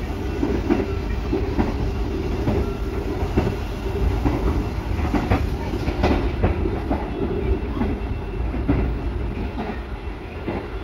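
Inside a moving Argo Cirebon passenger carriage: the steady low rumble of the running train, with irregular clacks and knocks from the wheels on the track.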